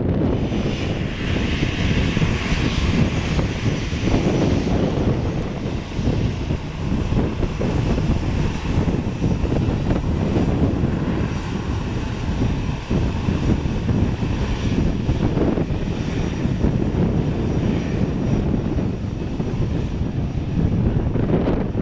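Airbus A321 jet engines running at taxi power as the airliner rolls past: a steady rumble with a faint high whine over it.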